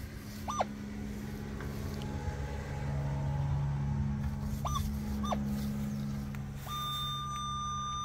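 Metal detector sweeping over grass: a steady low hum with a few short higher chirps, then, near the end, a steady high tone that starts and holds, the detector signalling a buried metal target.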